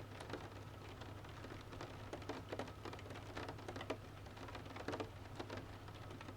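Rain falling, with many individual drops ticking irregularly over a steady patter and a low steady hum underneath.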